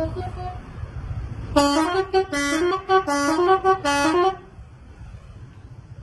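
Bus telolet horn, a multi-tone musical air horn, playing a quick stepping run of notes up and down for about three seconds, starting about a second and a half in and cutting off sharply. Low traffic rumble underneath before it.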